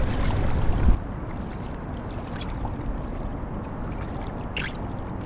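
Water lapping and splashing against a fishing kayak's hull as it moves along, with low wind rumble on the microphone that stops about a second in. A brief hiss comes near the end.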